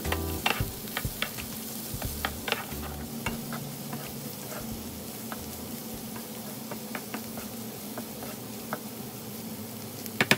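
Diced carrots, corn and green beans sizzling in a frying pan while a wooden spatula stirs and scrapes them, with scattered light knocks of the spatula against the pan, busiest in the first few seconds and a couple of sharper knocks near the end.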